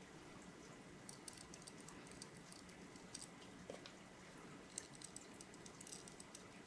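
Faint light clicks and ticks of small metal parts as the stainless steel head of an aquarium glass scraper is taken apart by hand, its screw posts turned out and set down, with a burst of clicks about a second in and a denser cluster near the end.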